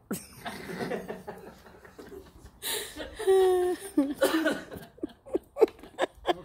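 Laughter, loudest a little past halfway, breaking into a run of quick short laughs near the end.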